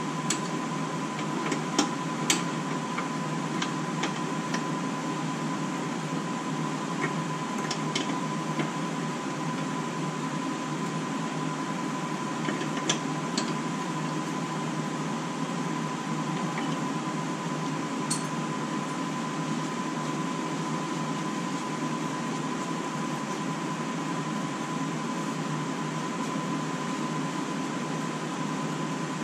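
Steady fan-like hum with a faint constant high tone, over which a handful of light metallic clicks and taps sound, several in the first few seconds and a few more scattered later, as hand tools work the front brake line fitting at the brake caliper.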